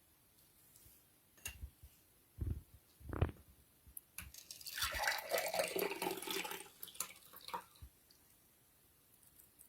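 A few soft knocks, then about three seconds of liquid splashing with small clicks.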